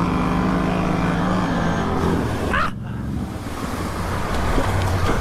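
ATV engine running at steady high revs, then dropping off about two and a half seconds in and going on as a rougher, noisier rumble.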